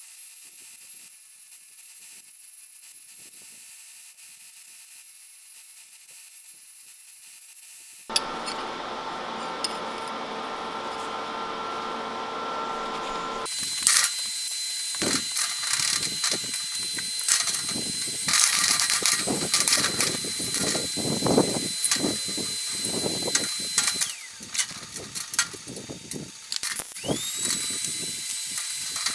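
Metalworking power tools in use, in three stretches: a faint steady hum, then a louder steady machine run from about eight seconds in, then from about fourteen seconds a loud stretch full of irregular clicks and knocks over a high whine.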